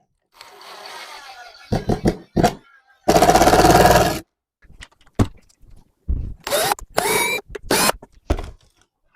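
Power drill boring a pilot hole in wood for a screw: one steady run of about a second, then several short trigger bursts, some rising in pitch, with a few knocks of the drill and workpiece.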